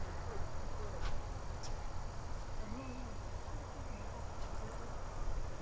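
Faint distant voices over a low steady rumble, with a few short high chirps.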